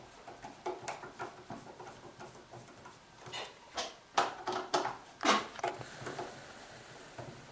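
Screwdriver unscrewing the fixing screws of an interior door's latch mechanism: irregular clicks and short metal scrapes, loudest about four to five and a half seconds in.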